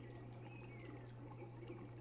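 Faint birdsong: short, gliding chirps and whistles over a low steady hum.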